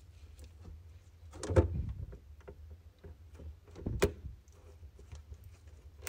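Plastic wire-harness connectors being handled and pushed into their sockets on a refrigerator fan assembly: small ticks and rustling, a louder knock about a second and a half in and a sharp click about four seconds in.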